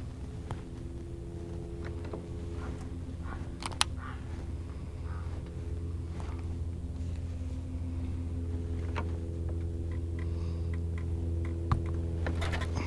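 Minn Kota electric trolling motor running with a steady low hum. A few sharp clicks and knocks sound over it, the loudest a little under four seconds in and again near the end.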